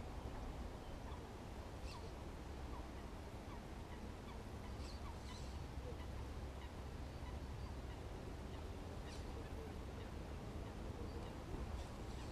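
Faint outdoor ambience: a steady low wind rumble on the microphone, with scattered short calls of distant waterfowl and birds over the pond.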